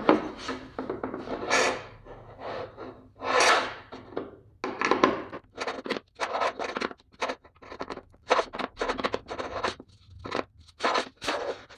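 Hand screwdriver turning the leveling screws of a plywood table saw insert to bring it level with the table: a run of short scraping, scratching strokes, quicker and choppier in the second half.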